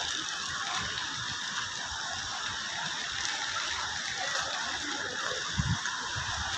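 Steady rushing of water running along a road covered in melting hailstones, with a few dull low knocks about five and a half seconds in.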